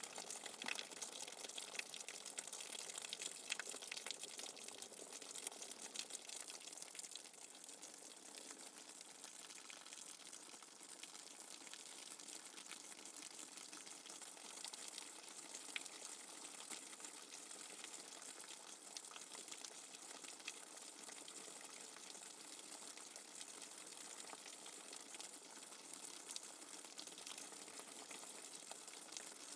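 Rainwater dripping fast and hard: a dense, steady patter of many small drops with a hiss behind it, a little heavier in the first few seconds.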